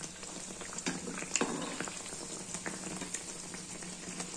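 Malpua pancakes of khoya batter frying in hot oil in a pan, a steady sizzle and bubbling, with a few light clicks of a perforated metal slotted spoon against the pan as they are turned.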